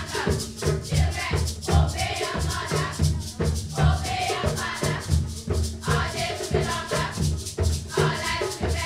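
A group of girls singing together to a steady hand-drum beat, with a rattle keeping time.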